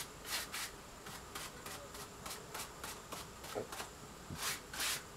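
Small paintbrush stroking wood stain onto a wooden case: soft, scratchy bristle strokes, about three a second, with two louder strokes near the end.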